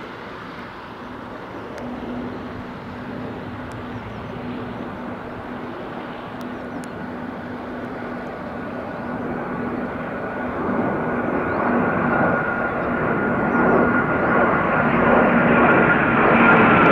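Jet engine noise from a Saab JAS 39 Gripen and two Eurofighter Typhoons flying over in formation, growing steadily louder as they approach. A high steady whine strengthens in the second half.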